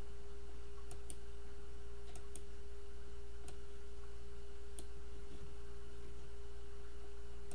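A few faint, irregular computer mouse clicks, about half a dozen, over a steady hum with a constant tone.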